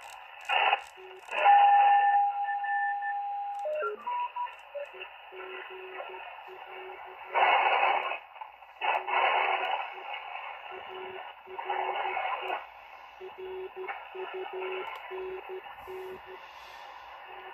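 Malachite DSP SDR shortwave receiver playing 40-metre band audio in lower sideband: hiss with a steady carrier tone that steps down in pitch as the dial is tuned about four seconds in. Then a Morse code signal is keyed on and off as a low tone through most of the rest, broken by a few loud bursts of noise.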